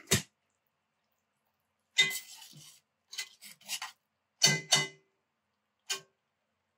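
Cooking utensil knocking, scraping and clinking against a pot of braised beef: a sharp knock at the start, a scrape about two seconds in, a few short scrapes, then two clinks with a short ring and a last clink near the end.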